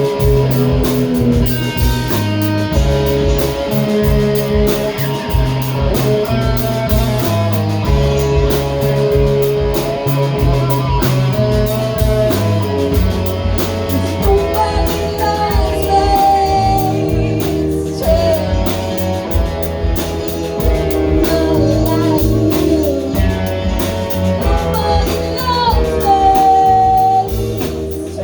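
A band plays a song: a singer over guitar, a stepping bass line and drums. Held, gliding sung notes stand out more in the second half.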